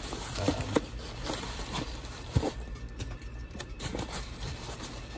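Foam packing peanuts rustling as hands dig through them in a cardboard box, with irregular handling clicks and two sharper taps.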